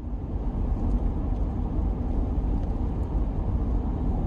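Vehicle on the road, a steady low rumble of engine and road noise.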